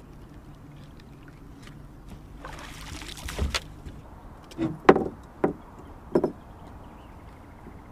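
Water splashing as a blue catfish is lifted out at the side of an aluminum jon boat, then four sharp knocks on the boat as the fish comes aboard, the loudest a little before the five-second mark.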